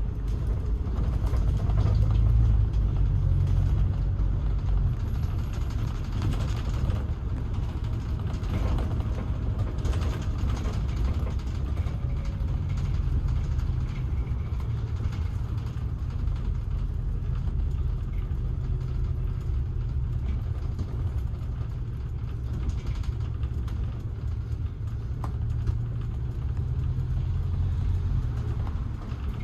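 Road vehicle noise: a steady low rumble with no clear breaks.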